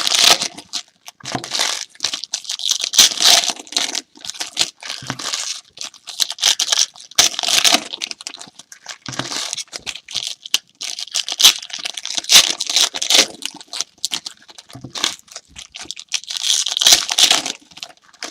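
Foil trading-card pack wrappers and packaging being torn open and crinkled: an irregular run of crackling, rustling and tearing.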